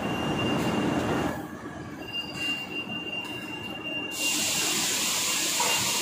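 Machinery in a CNC steel-plate cutting shop: a steady high-pitched whine over a rushing machine noise, with a loud hiss joining about four seconds in.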